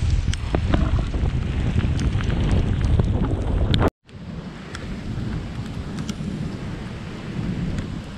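Wind rushing over the microphone of a bike-mounted camera riding through heavy rain, with scattered sharp ticks of raindrops. The sound cuts out abruptly about four seconds in, then resumes as quieter wind noise with only occasional ticks.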